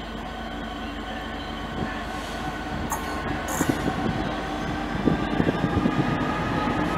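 Freightliner Class 66 diesel locomotive approaching with a freight train, its engine running steadily and growing louder as it nears. From about halfway, the wheels start clicking over the rail joints and points, and the clicks come thicker and louder near the end.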